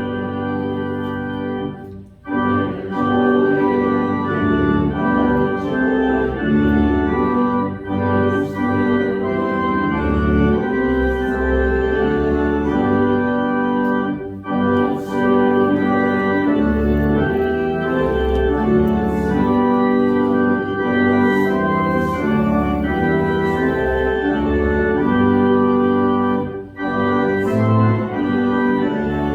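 Organ playing a hymn in sustained chords that change every second or so, with short breaks between phrases about 2, 14 and 27 seconds in.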